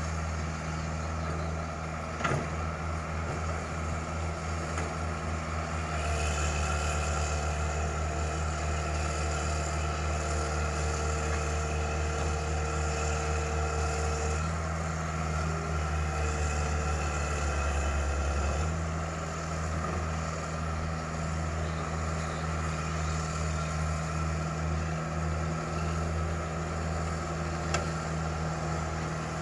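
Excavator diesel engine running steadily, working harder with a higher whine added from about six seconds in until about eighteen seconds, then easing back. A sharp knock comes a couple of seconds in and another near the end.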